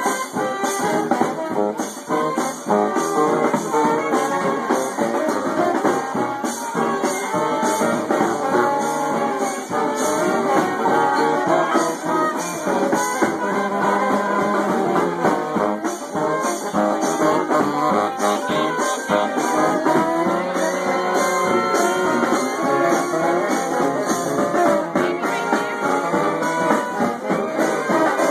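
A traditional New Orleans brass band playing loud up-tempo music close by: trombones and trumpets carrying the tune over a sousaphone, with a steady beat of drums and cymbals.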